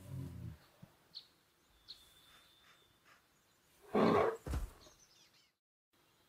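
Recorded brown bear growls from Google's 3D AR brown bear, played through a phone speaker: the tail of a low growl at the start, then a louder short growl about four seconds in, followed by a second, lower one.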